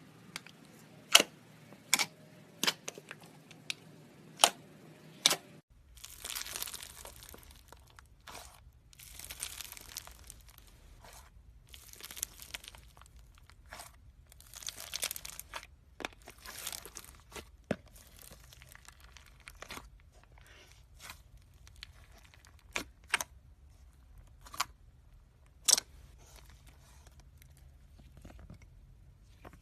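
Slime being handled close to the microphone. There are sharp pops at first, then irregular crackling, crunchy bursts as it is squeezed and stretched.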